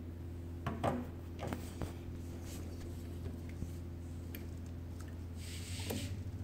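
Metal parts of a nut grinder being handled: a few light knocks and clicks in the first two seconds, then a brief rubbing hiss near the end as a hand grips the cast-aluminium grinding head.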